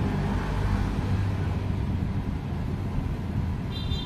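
Steady low background rumble with a hum, and two short high chirps near the end.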